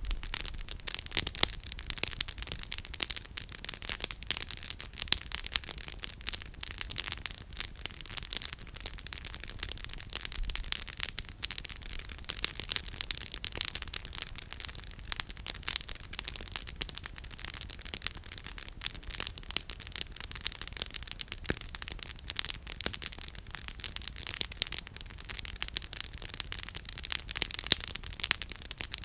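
Campfire firewood burning and crackling, a dense, irregular stream of sharp pops and snaps.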